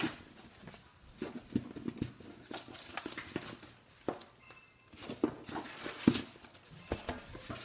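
Irregular rustling with small clicks and light knocks: packaging and a handbag being handled and unwrapped.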